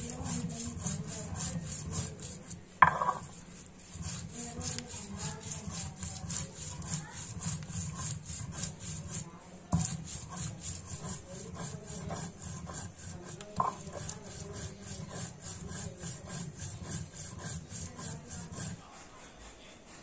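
Dry red chillies being ground by hand on a flat stone slab (sil-batta), the stone muller rubbing and scraping over the slab in a steady rhythm of quick strokes. A sharp knock with a short ring sounds about three seconds in, and a smaller knock near ten seconds. The grinding stops shortly before the end.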